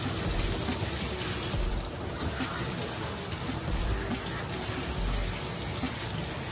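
Steady hiss of water from a hand-held grooming sprayer rinsing a wet dog's face, splashing down into a stainless steel grooming tub.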